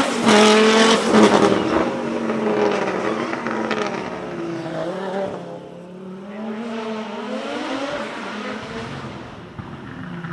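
Audi S2 Quattro hillclimb car's turbocharged five-cylinder engine accelerating hard away up the road. Its pitch climbs and drops again with each gear change, and the sound fades into the distance.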